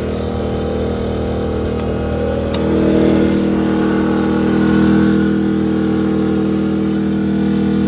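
Pulsar 2300-watt inverter generator running steadily inside an aluminium toolbox, a constant engine hum. A click about two and a half seconds in as the box is opened, after which the generator is louder.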